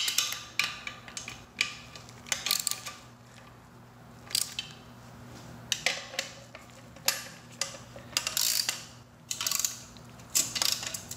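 Socket ratchet tightening the bolts that hold the motor to the pump's seal plate: short runs of ratchet clicks and metal clinks, about ten bursts with pauses between.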